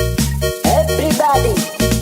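Background music with a steady beat and a deep bass line, with gliding vocal-like melodic lines over it.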